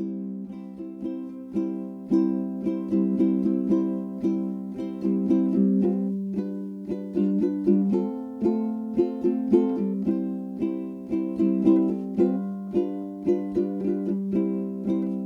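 Background music: a bright, plucked ukulele-style tune with a steady rhythm.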